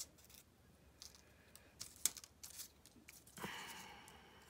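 Faint rustling and light ticks of small paper cut-outs and scraps being picked through on a tabletop, with a sharper tick about two seconds in and a louder paper rustle about three and a half seconds in that fades over about a second.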